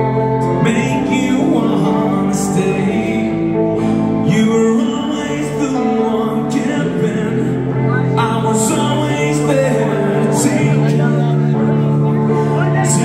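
Live rock band playing a song: male lead vocals over electric guitar, bass and drums, with cymbal crashes about every two seconds.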